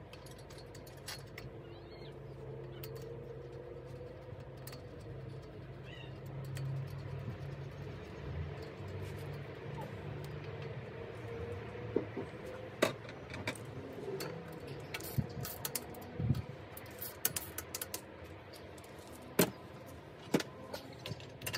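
Small sharp metallic clicks and taps of a screwdriver and handlebar parts (brake lever and shifter clamps) being worked on a mountain bike handlebar, coming thick and fast from about halfway through, over a steady low hum.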